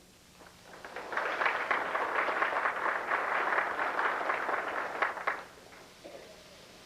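Audience applauding: the clapping swells about a second in and dies away after about five seconds.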